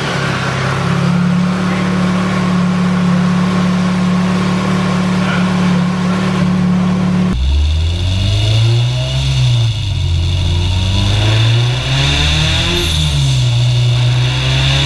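Honda B20-based four-cylinder engine with Crower 404 camshafts running, first held at a steady speed. After a cut about seven seconds in, it revs up and falls back twice, with a steady high whine underneath.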